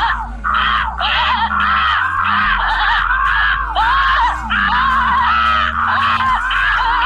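Cartoon animal cries: a rapid, unbroken run of shrill squawking calls, about two a second, over a low steady drone.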